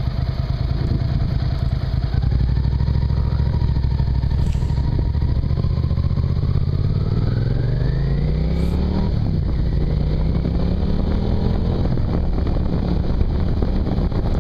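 Suzuki SV650's V-twin engine under way, holding steady and then rising in pitch as it accelerates, dropping sharply about nine seconds in at a gear change and rising again.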